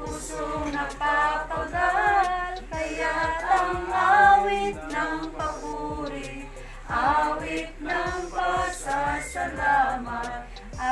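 A group of voices singing a hymn together, in several phrases with a short breath pause just before the middle.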